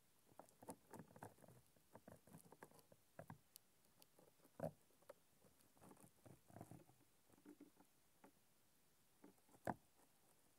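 Near silence broken by faint, irregular small clicks and rustles, with a sharper click about halfway through and another near the end.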